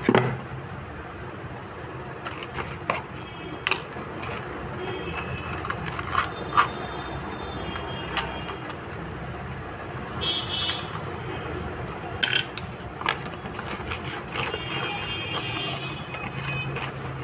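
Scattered clicks and taps of a charger circuit board and its parts being handled on a workbench during the fitting of a new MOSFET, over a steady low background hum. A few faint high tones come and go.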